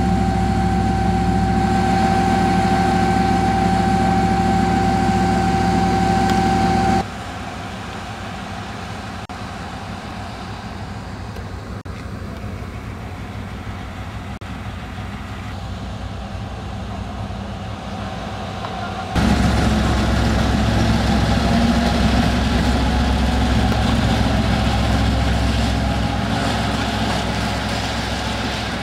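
2M62U diesel locomotive's engine running, with a steady whine over the low engine note. About seven seconds in it cuts abruptly to a quieter, more distant rumble. It cuts back to a loud, low engine sound with about nine seconds left.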